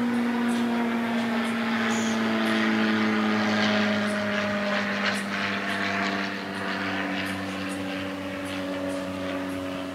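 Low engine drone of a passing aircraft, a steady hum that glides slowly down in pitch and fades over the last few seconds.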